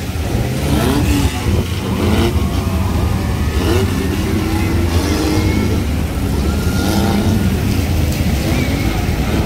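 Several off-road jeep engines running and revving together, their pitch rising and falling repeatedly over a steady low rumble.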